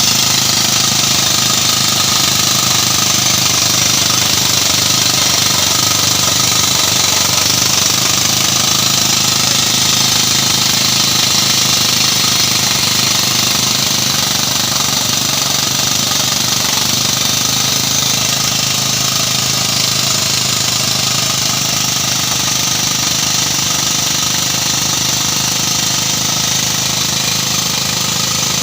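Drill machine running steadily without a break.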